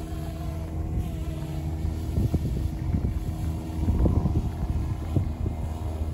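Wind buffeting the microphone in irregular gusts over a steady, low mechanical hum, like an engine running.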